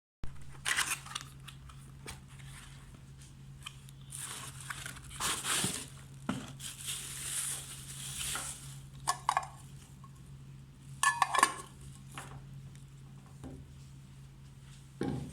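Irregular clicks, knocks and crinkly rustling, like a small plastic-bodied appliance and its wrapping being handled, over a steady low hum.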